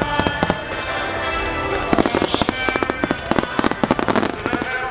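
Starmine fireworks display: aerial shells bursting in rapid, irregular volleys of sharp bangs and crackles, with music playing alongside.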